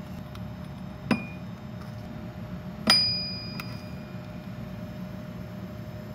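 Two sharp metal clinks as a hand tool knocks a freshly machined aluminium plate loose from its tabs in the stock. The second, louder one sets the plate ringing briefly. A steady low hum runs underneath.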